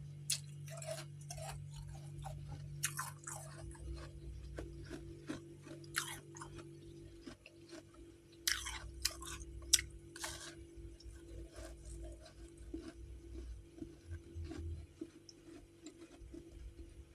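Chunks of freezer frost being bitten and chewed close to the microphone: crisp crunches in bursts, the loudest cluster a little past the middle, over a steady low hum.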